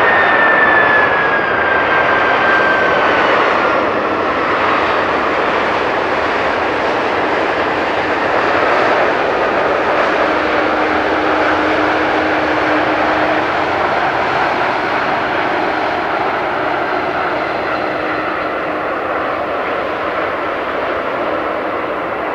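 Boeing 767-300ER's jet engines roaring as the airliner rolls down the runway, with a high engine whine that falls in pitch over the first few seconds. The roar slowly fades as the aircraft moves away.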